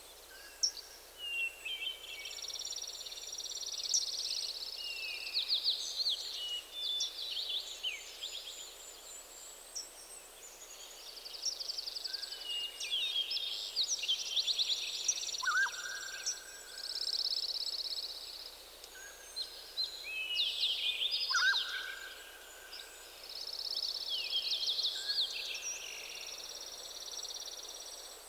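Several songbirds singing together in a forest morning chorus: overlapping high trills, chirps and quick sweeping phrases, with a lower, plain short whistle now and then.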